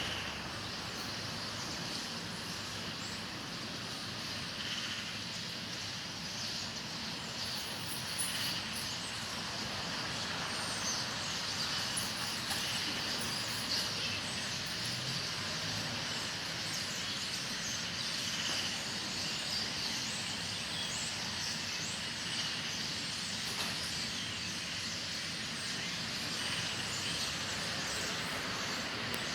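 A large flock of birds calling all at once, a dense continuous chatter of many short chirps, over a faint low rumble of traffic.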